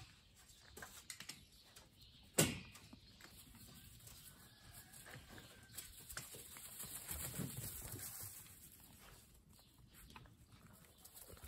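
Golden retriever puppies moving about on hay and dirt: faint rustling and pattering, with one sharp loud knock about two and a half seconds in.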